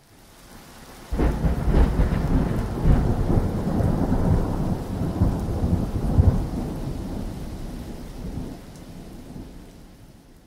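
Thunderclap sound effect: a sudden crack about a second in, then a long rolling rumble with crackles that slowly fades away.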